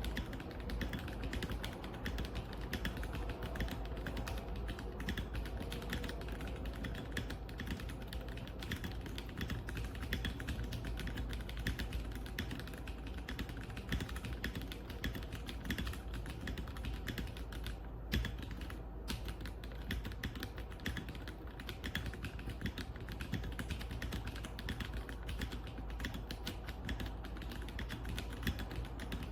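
Continuous typing on an RK Royal Kludge M75 75% mechanical keyboard with red linear switches, a dense stream of keystroke clicks with a short pause partway through.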